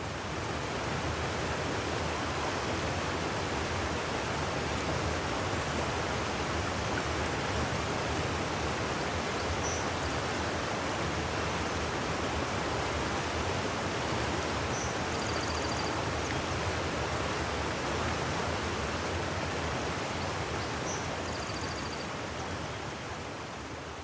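A fast-flowing creek rushing over a low weir: a steady, even rush of water.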